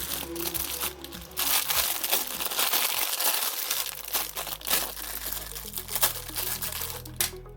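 Plastic packaging crinkling and crackling as it is handled, over faint background music.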